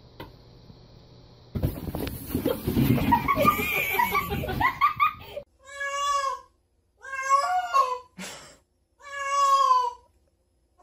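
Domestic cat meowing: three long, loud, drawn-out meows about a second apart in the second half, after a few seconds of rustling noise.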